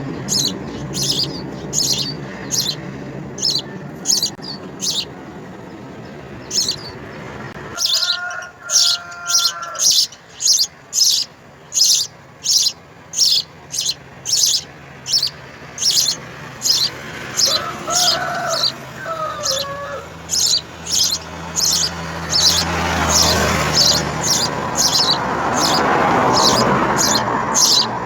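House sparrow chirping over and over, short sharp chirps at about two a second.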